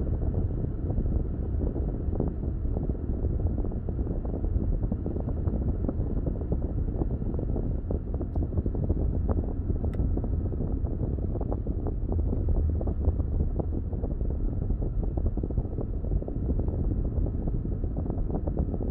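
Steady low rumble of a car driving along a highway: engine and tyre road noise.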